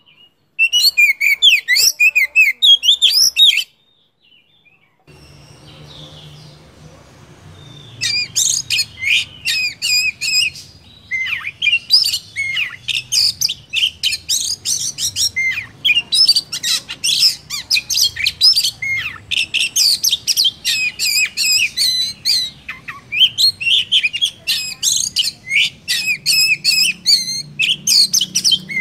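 Oriental magpie-robin singing a fast, varied song of whistled and harsher notes. A short burst comes first, then a pause of a couple of seconds, then from about eight seconds in a near-unbroken run of song over a faint low hum.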